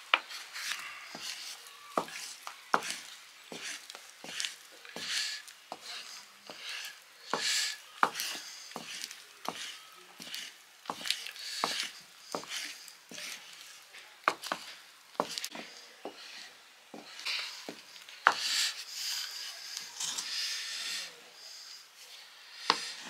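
Flat wooden paddle stirring and beating thick millet dhido in a two-handled iron pan: irregular wooden knocks against the pan, roughly one a second, with scraping of the stiff dough in between.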